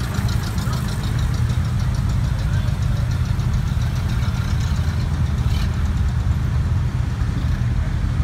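Old car engines running at low speed as vintage cars pull slowly past one after another: a steady low engine drone, with a fast even ticking over it for the first few seconds.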